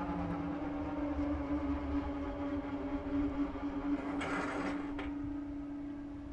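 A departing train running away from the crossing with a steady pitched hum over a low rumble that fades. A short hiss comes about four seconds in.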